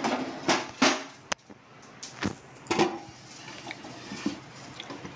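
A heavy dosa tawa (griddle) being gripped with a cloth and lifted off the stove, giving a few short knocks and scrapes of metal in the first three seconds, then quieter handling.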